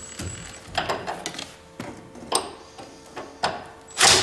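Scattered light knocks and clicks as the socket on a Milwaukee cordless impact wrench is fitted onto a 10 mm bolt, then a short loud burst as the tool fires near the end.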